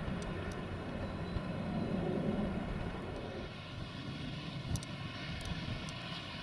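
Airbus A380 airliner's four Rolls-Royce Trent 900 turbofan engines running as the jet moves slowly along the runway: a steady low rumble under a whine of several held tones. The rumble eases a little about halfway through.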